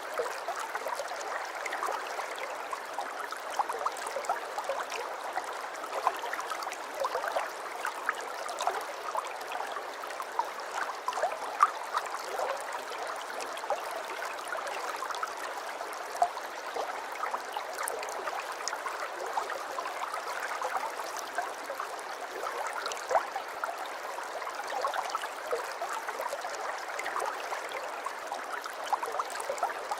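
Aquarium water trickling and bubbling steadily, with many small pops and splashes.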